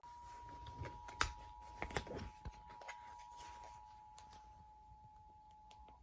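Emergency Alert System two-tone attention signal: two steady, close-pitched tones sounding together, faint, and ending about six seconds in. A few sharp clicks come in the first two and a half seconds.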